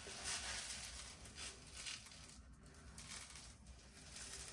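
Dry rice grains trickling from a glass jar into a plastic container on a kitchen scale, a faint patter.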